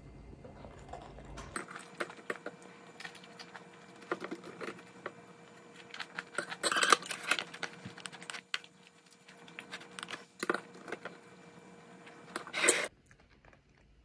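Light clicks and clinks of small hard objects being handled, with a louder clattering burst about seven seconds in and another shortly before the end. A low hum underneath stops about a second and a half in.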